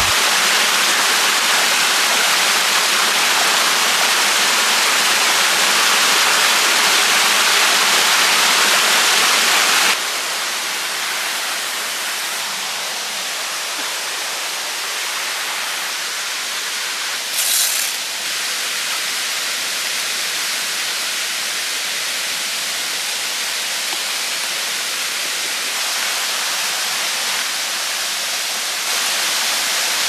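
Mountain stream rushing down a small rocky cascade in a steady loud rush. About ten seconds in it drops suddenly to a softer, steady stream sound, with a short high hiss a little past halfway.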